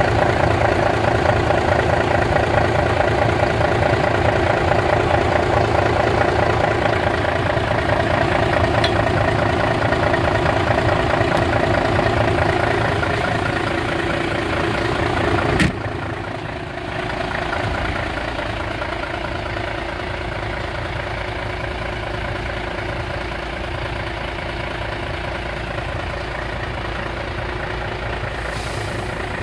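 Mercedes-Benz SK 2024 truck's diesel engine idling steadily. About halfway through there is a sharp click, after which the idle is a little quieter.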